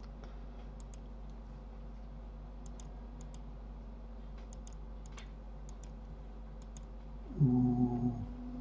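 Faint computer mouse and keyboard clicks, scattered and several in pairs. Near the end a steady low hum comes in, louder than the clicks.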